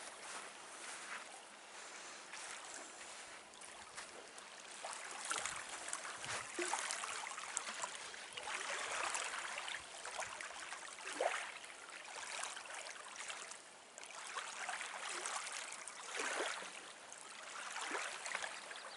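Small waves lapping on a gravel lakeshore, the wash swelling and fading every few seconds, with a few light footsteps on the beach.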